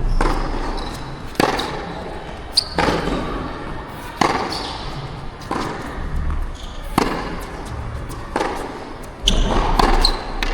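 Tennis rally: the ball is struck back and forth with sharp hits about every second and a half, about seven in all. Wind rumbles on the microphone underneath.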